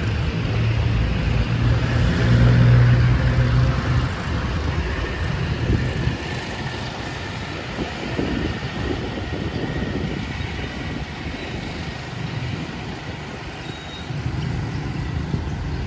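Bus engine running with steady road noise, its low hum louder over the first few seconds and then easing.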